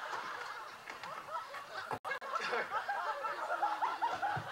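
An audience laughing and chattering, with many overlapping voices, briefly cut off about halfway through.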